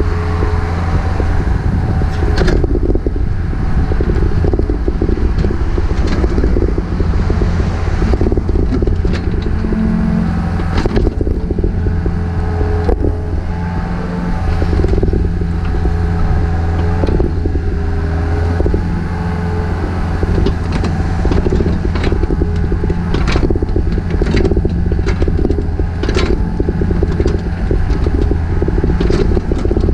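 Takeuchi TB153FR compact excavator's diesel engine running steadily under work, with repeated sharp clanks and scrapes from the machine digging.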